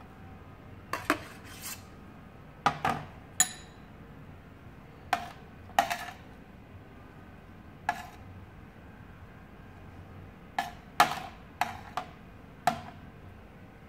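A metal teaspoon scraping grated beetroot together and knocking and clinking against a glass bowl and the tray: about fifteen sharp, irregularly spaced taps. One tap about three and a half seconds in rings briefly like a spoon striking glass.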